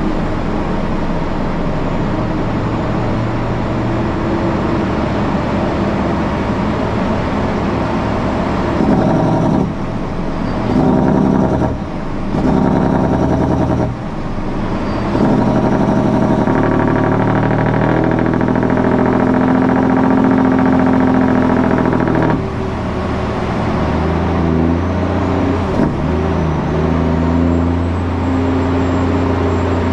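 Heavy truck's diesel engine running under way, a steady drone whose pitch and loudness switch abruptly several times.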